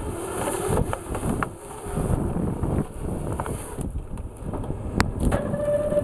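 Large forestry processor working a tree: a steady rough machine rumble with sharp cracks and knocks as the head grips and feeds the stem, the loudest crack about five seconds in. A steady whine sets in near the end.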